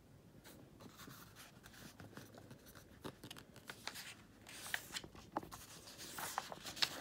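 A page of a hardcover picture book being turned by hand: faint paper rustling and small scrapes, picking up about halfway through as the page slides over.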